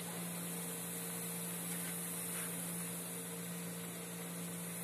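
Dough rings deep-frying in a wok of hot oil, a steady sizzle, with a steady low electrical hum beneath it.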